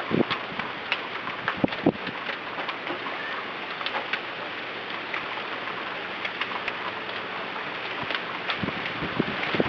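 Windstorm wind and rain: a steady rushing hiss with scattered sharp taps and ticks throughout, a few stronger knocks in the first two seconds.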